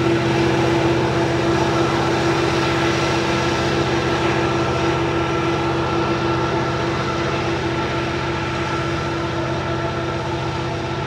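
EMD diesel locomotives working hard under load as they climb a mountain grade with a coal train: a steady engine drone with a high whine over a low rumble, slowly fading as the units move away.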